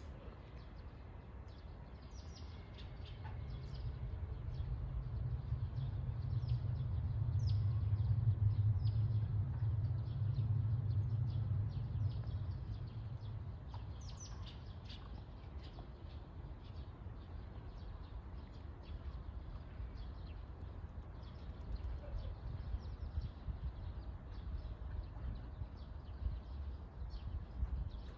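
Small birds chirping in short, scattered calls, over a low rumble that swells for about ten seconds, is loudest a third of the way in, then fades away.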